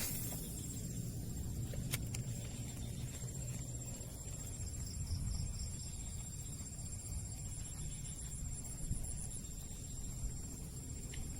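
Insects calling in a dusk chorus: a steady high-pitched whine with pulsed trills coming and going above it, over a low steady rumble, with one sharp click about two seconds in.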